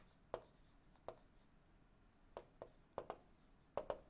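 A string of faint, irregular taps and light scratches from a stylus writing on a tablet screen.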